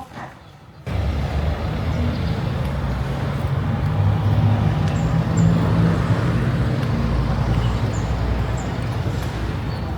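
Car running along a road: a steady low engine drone with road noise, starting abruptly about a second in.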